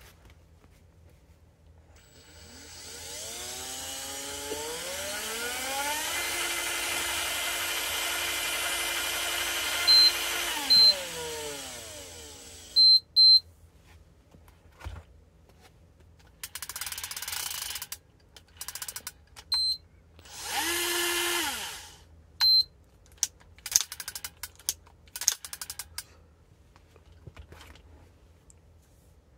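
Shimano Dendou-maru PLAYS 4000 electric fishing reel's motor spinning up with a rising whine, running steadily for several seconds, then winding down, with short electronic beeps from the reel. Later a second brief motor run rises and falls, among scattered clicks and a couple of seconds of noisy whirring while the spool is handled.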